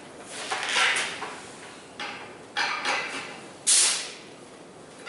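Four short blasts of air through a three-chime mutt train horn (Leslie 25 bell with Prime 31 and 37 bells on Prime power chambers), mostly a rush of air with the chimes sounding only faintly. The last burst, near the end, is the loudest.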